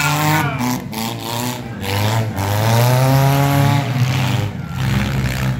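Demolition derby cars' engines running and revving in the arena, their pitch rising and falling.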